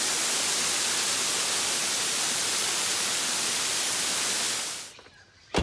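Steady, even hiss like static, fading out about five seconds in, followed by a single sharp click near the end.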